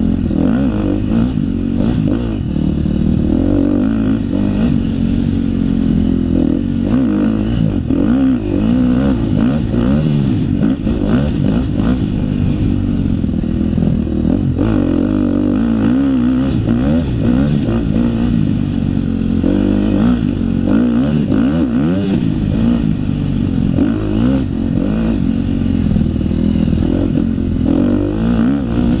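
KTM 250 XC-F dirt bike's 250 cc four-stroke single-cylinder engine under hard riding, its pitch rising and falling constantly as the throttle is opened and shut. Short rattles and knocks from the bike over rough ground run through it.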